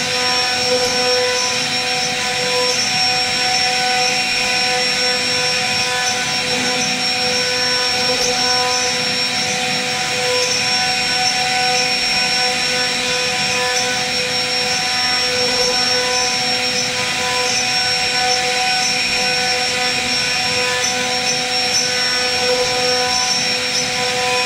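CNC router spindle motor running at speed with a steady high whine, its carving bit cutting into a wooden door panel.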